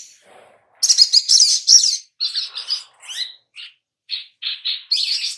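Sunbird singing: high-pitched, rapid twittering, with a dense burst about a second in, then a string of short chirps and another burst near the end.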